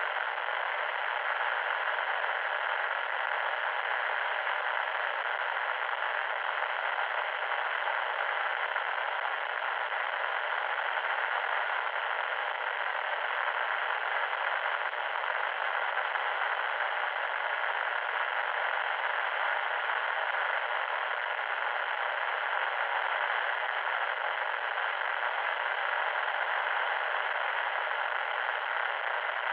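Steady static noise, like an untuned radio: a constant hiss without deep bass or high treble that never breaks or changes.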